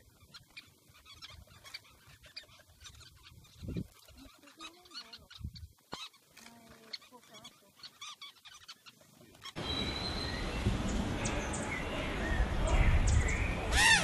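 Birds calling: faint, scattered short chirps from a colony at a sociable weavers' communal grass nest. About ten seconds in, a sudden cut brings a much louder, busier chorus of bird calls over a noisy background, with one loud call near the end.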